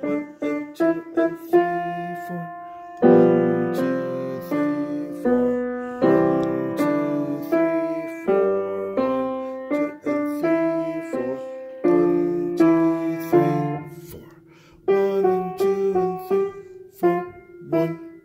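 Piano played with both hands: a melody over bass notes and chords, each note struck and left to fade, with a brief softer stretch about fourteen seconds in.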